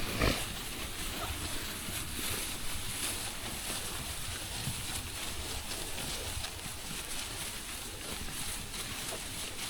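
Wind buffeting the microphone outdoors: a steady low rumble with a hiss over it.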